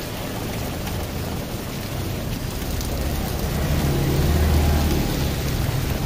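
Steady rain falling, with a motor vehicle's engine growing louder and then fading as it passes close, loudest about four and a half seconds in.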